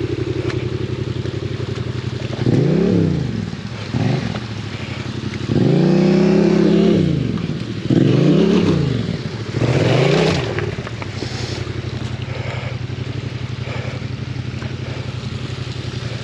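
Yamaha Ténéré 700's parallel-twin engine at a steady idle, then revved up and down about five times, one rev held for a couple of seconds, before settling back to idle.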